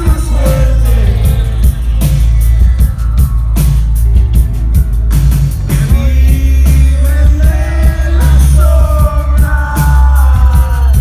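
Live rock band playing, electric guitar and drums under a sung lead vocal, with a heavy, loud low end.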